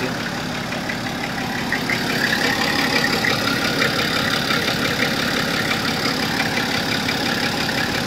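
Nissan Safari's diesel engine idling steadily.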